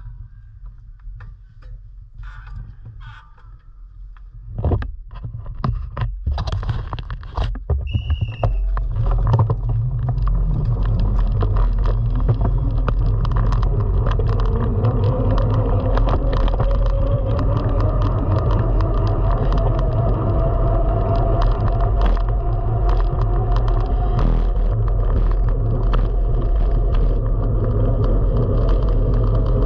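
Cyclo-cross bikes moving off in a bunched race start, heard from a camera mounted on one of the bikes. Scattered clicks and knocks come first. From about nine seconds a loud, steady rumble of wind on the microphone and tyres on the track takes over as speed builds, with a faint whine slowly rising in pitch.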